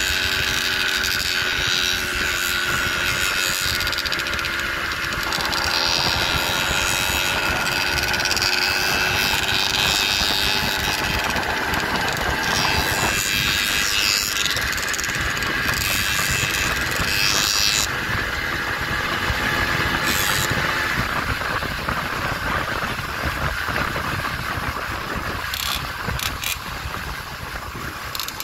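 Motorized bicycle's small engine running under way, a steady engine note over a continuous rush of wind and road noise; the note is clearest in the first few seconds.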